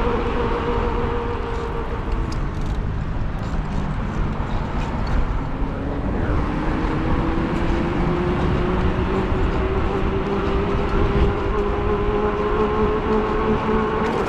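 E-bike motor whining while riding, over a steady low rumble of wind and road noise; the whine fades early on, then rises steadily in pitch from about halfway through as the bike picks up speed.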